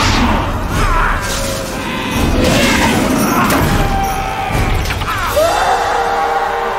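Action-film sound mix: orchestral score under crashing and shattering debris and repeated sharp impacts. About five and a half seconds in, the music settles into held sustained notes.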